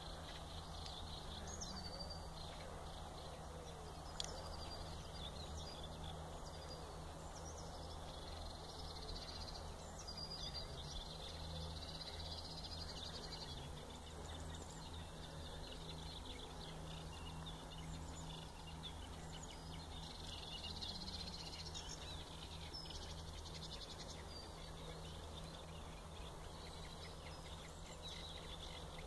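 Reed warblers singing in a reedbed: a long run of short, high, chattering notes over a steady low hum.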